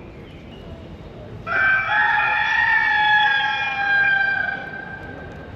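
The clockwork rooster of the Messina Cathedral astronomical clock crowing once, a single long call of about three seconds that starts about a second and a half in and falls slightly in pitch.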